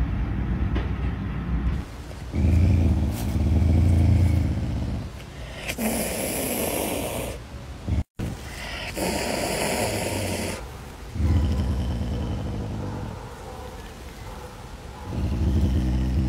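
Caracal growling and hissing: low rumbling growls alternate with sharp, breathy hisses, two of them a few seconds apart around the middle.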